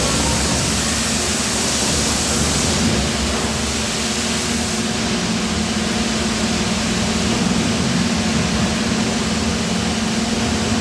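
Steady hum of running die casting factory machinery with a hiss of air over it; the hiss drops away about three seconds in and again about five seconds in.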